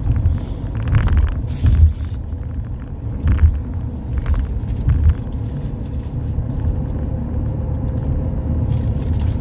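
Steady low rumble with a few short knocks or crunches in the first five seconds.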